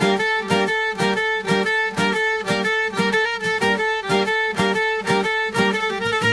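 Background music: a fast, steady run of bright plucked or bowed string notes.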